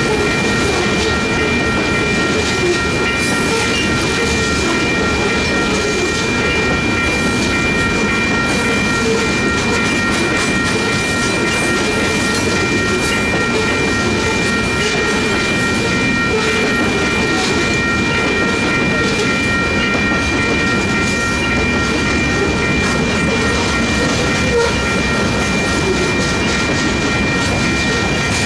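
Covered hopper cars of a freight grain train rolling past at a grade crossing, wheels rumbling and clacking on the rails. A steady high ringing of several tones from the active crossing bell sounds over it.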